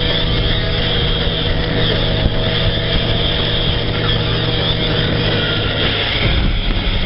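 Sportbike engine running at a steady part throttle at about 40 mph, mixed with wind rushing over the bike-mounted camera's microphone.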